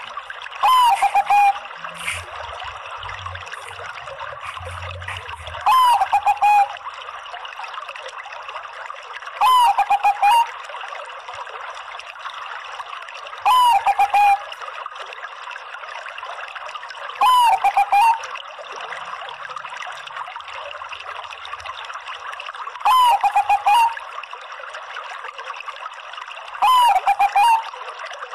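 Bangkok perkutut (zebra dove) cooing: seven short, loud calls at a steady pace about four seconds apart, each a quick upward note followed by a rolling trill, over a steady background hiss.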